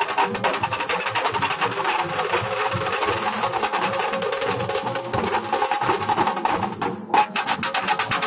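Nashik dhol drumming group playing: large bass drums and stick-beaten drums pounding a fast, dense rhythm. About seven seconds in the beat breaks off for an instant, then comes back on a loud hit.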